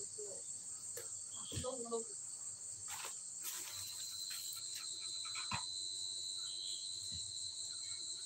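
Steady, high-pitched chirring of night insects, with a second, thinner insect tone joining a little under four seconds in. Faint voices come in briefly near the two-second mark, along with a few small clicks.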